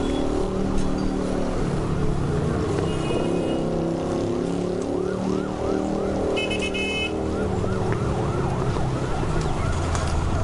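Emergency vehicle sirens in heavy traffic. A fast rising-and-falling siren comes in about halfway through, over a dense mix of overlapping steady tones and engine noise.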